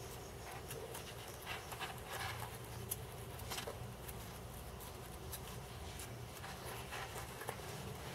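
Faint scratching and small, sharp clicks of fingers rolling and pressing a thin strip of glitter craft foam, over a low steady hum.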